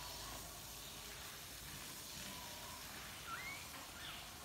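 Faint background hiss with a few brief, thin high squeaks from newborn husky puppies, the clearest rising in pitch about three seconds in.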